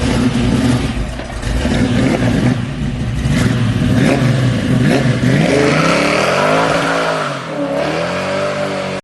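A car engine revving, its pitch rising and falling several times in the second half, then cutting off abruptly.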